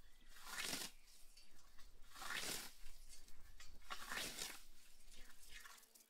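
Scythe swishing through tall meadow grass: three cutting strokes, evenly spaced about two seconds apart.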